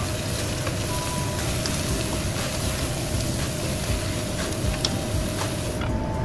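Sponge gourd chunks sizzling in a hot wok as a wooden spatula stirs them, over a steady rushing background. Near the end a lid goes on and the sizzle turns duller.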